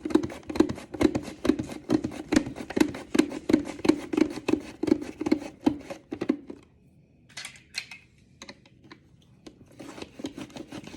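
A squash being cut with a vegetable chopper: a run of regular cutting strokes, about two a second, each a dull thud with a sharp click. The strokes stop about two-thirds of the way through, leaving a few faint clicks and handling sounds.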